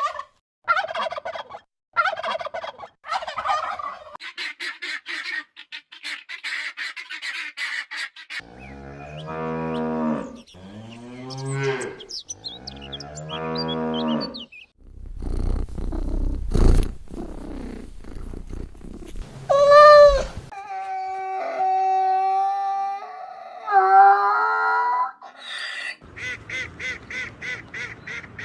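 A succession of farm animal calls: turkey-like gobbling for the first few seconds, then a cow mooing three long times in the middle, followed by several honks from geese near the end.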